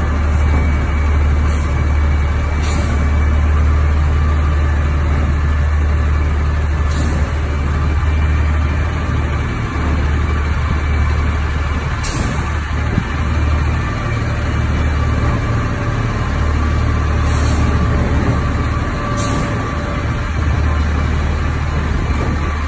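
Garbage truck engine running steadily with a deep low rumble, with short high hisses breaking in every few seconds.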